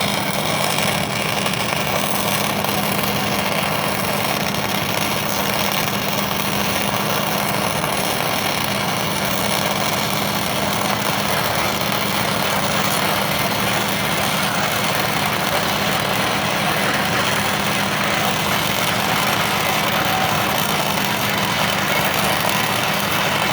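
Flux-cored arc welding on steel pipe: a continuous crackling hiss from the arc with a steady low hum underneath, unbroken throughout.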